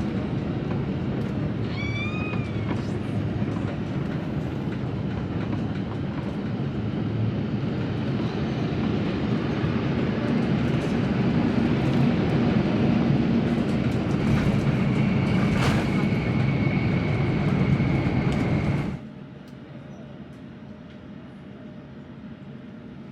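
Airbus A350-900 jet airliner heard from inside the cabin: a steady rumble of engines and airflow that grows louder over several seconds. About 19 seconds in, the rumble cuts off abruptly to a much quieter background.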